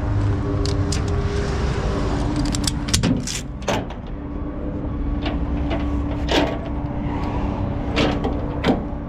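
Tow truck engine running steadily to drive the winch while a disabled car is winched, with several sharp metallic clanks from the winch, chains or bed.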